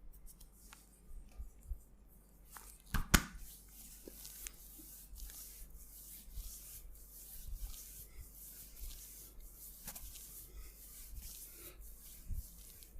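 Hands rubbing and kneading skin in a massage: a steady soft rubbing with scattered light taps, and one sharp smack about three seconds in.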